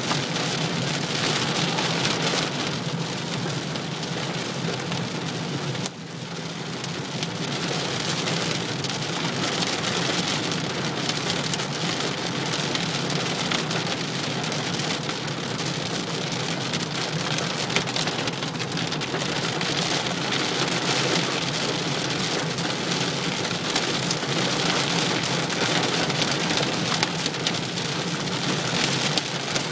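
Hail and heavy rain drumming steadily on a car's roof and windscreen, heard from inside the cabin while driving.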